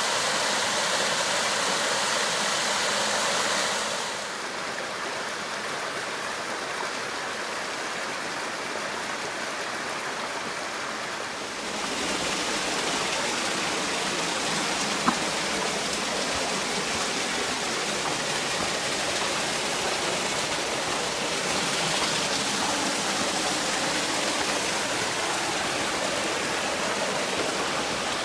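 Creek water rushing over rocks as a steady rush. It drops in level about four seconds in and comes back up about twelve seconds in, with a single sharp click about fifteen seconds in.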